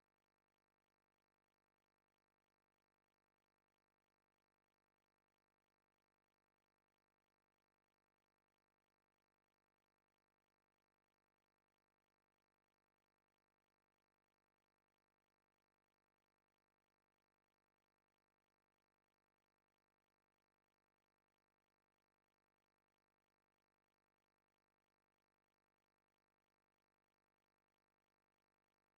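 Near silence: an essentially empty audio track with only a faint steady noise floor.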